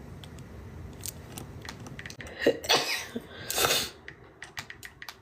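A woman sneezing twice in a sneezing fit, the sneezes about two and a half and three and a half seconds in, with scattered small clicks around them.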